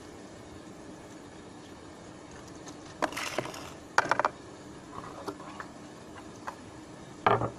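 Scrub brush and cleaning things being handled on a concrete rooftop: bursts of scraping and clattering about three and four seconds in, a few lighter knocks after, and a sharp knock near the end.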